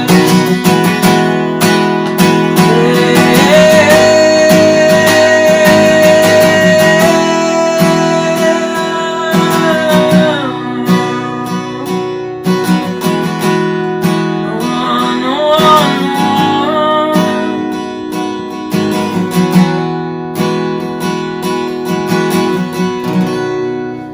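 Worship music played out instrumentally: strummed acoustic guitar chords with a long held melody note above them, fading down near the end.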